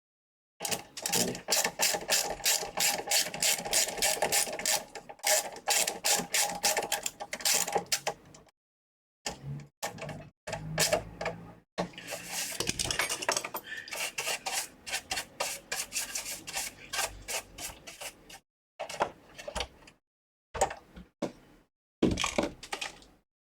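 Ratcheting hand-tool clicks, about four or five a second, in runs of several seconds with short pauses, as screws are worked during reassembly of a PlayStation 5 console.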